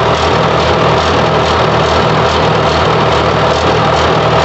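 HMT 5022 tractor's diesel engine running steadily at an even speed, heard close to its upright exhaust stack.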